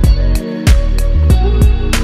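Background music with a steady beat: low drum thumps, sharp ticks above them and sustained bass and melody notes. The bass drops out briefly about half a second in.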